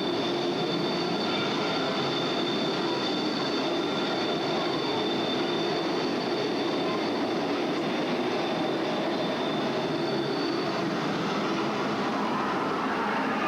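Subway-style ride train running, with a steady rumble and a sustained high squeal.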